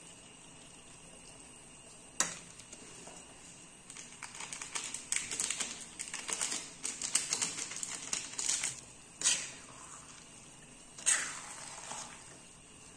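Metal spoon clicking and scraping against a small kadhai as noodles are stirred on a portable gas stove. A single sharp knock comes about two seconds in, a quick run of irregular clicks and scrapes follows for several seconds, and there are a couple more knocks near the end.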